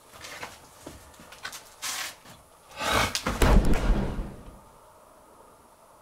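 A few light knocks and rustles, then a heavy scraping thud about three seconds in that lasts over a second before dying away.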